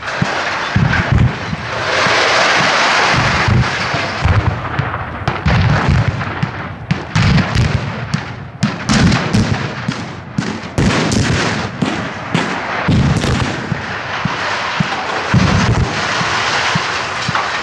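A long, irregular string of explosive cutting charges going off as a field of guyed steel radio towers is felled: dozens of sharp cracks and deep booms, several a second at times. A stretch of dense rushing noise comes about two seconds in.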